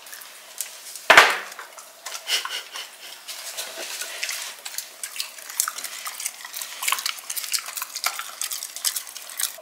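Light clinking and clicking of tableware, with one heavier knock about a second in.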